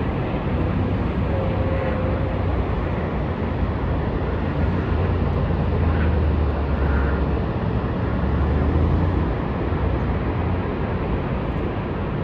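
Steady rushing roar of the American Falls at Niagara, a loud unbroken wash of falling water with a deep low rumble.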